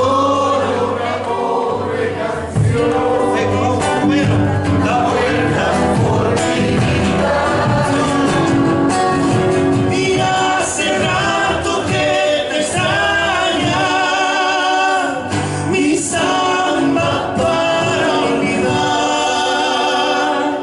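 Argentine folk song with several voices singing together over instrumental accompaniment.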